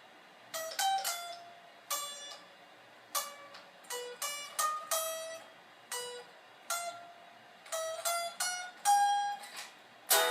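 Strat-style electric guitar picked one note at a time: a slow, loose run of single notes, each ringing briefly and fading before the next.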